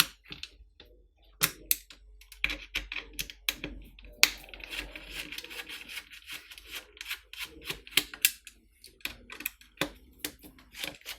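Side fixing screws being undone from a CF20 paintball magazine's shell with a hand tool: a run of irregular small clicks and ticks, with light scraping in between.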